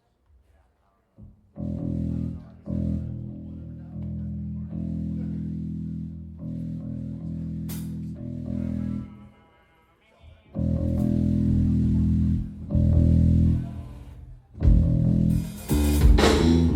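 Live punk rock band: amplified electric guitar and bass play long held chords that stop and start. The drums crash in near the end as the full band launches into a song.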